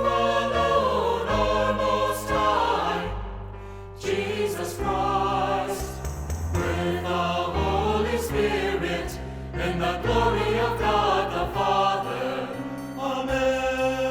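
Choir singing a Christian Christmas song over instrumental accompaniment, with sustained vocal lines and a moving bass.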